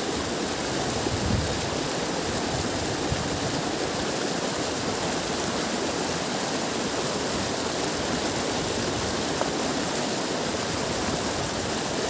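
Steady rush of river water churning and splashing into white foam.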